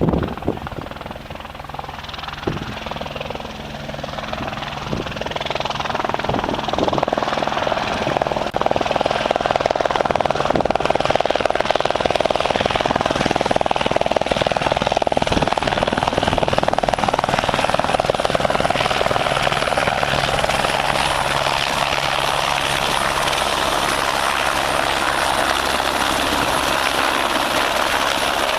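Helicopter growing louder over the first several seconds as it comes close, then a steady rotor and turbine noise with a high whine.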